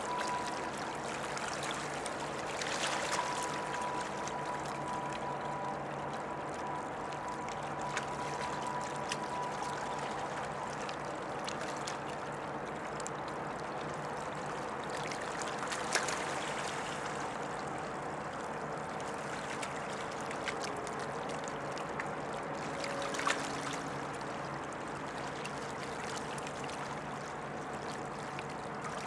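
Water lapping and trickling along the riverbank, over a steady low hum with a few held tones from the large container ship passing close by. A few sharp clicks stand out briefly.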